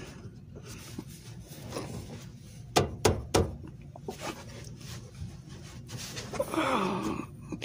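Handling noise under a truck: a few sharp knocks and clicks about three seconds in, over faint breathing, and a short low vocal sound near the end.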